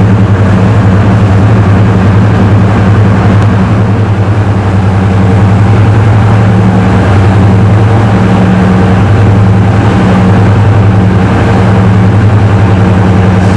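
Class 55 Deltic locomotive's two Napier Deltic two-stroke opposed-piston diesel engines idling loudly and steadily, with a deep, even drone.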